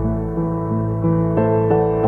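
Background music: a slow, soft ambient piece of sustained keyboard notes over a slowly stepping low line, with new notes coming in about a second and a half in.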